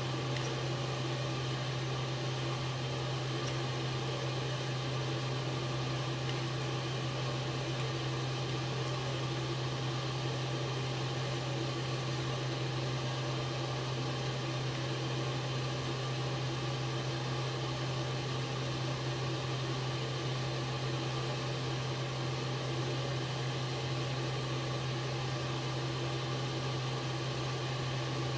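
Kitchen exhaust fan running: a steady low hum under an even hiss.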